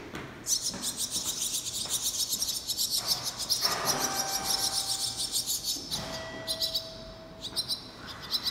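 Barn swallow nestlings in the nest calling with rapid, high-pitched chirps. The chirping is a dense, continuous chorus for about five seconds, then breaks into short bursts near the end.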